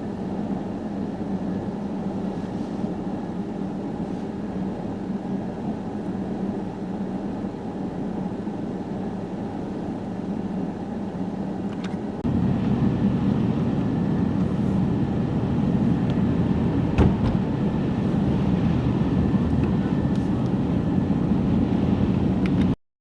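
Steady vehicle engine and road noise. About twelve seconds in it jumps to a louder, deeper drone, with a single sharp click a few seconds later, and it cuts off suddenly just before the end.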